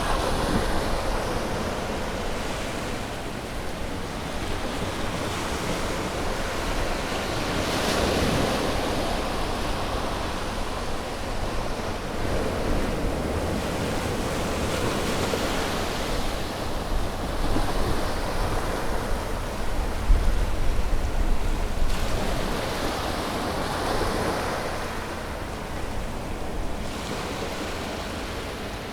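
Ocean waves breaking and washing on a beach: a continuous surf noise that swells and recedes every few seconds, with a low rumble underneath.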